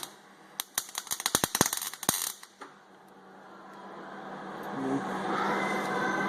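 Work on a sheet-metal blower housing: a quick, irregular run of sharp crackling clicks lasting about two seconds, starting about half a second in. After it a steady hum slowly grows louder.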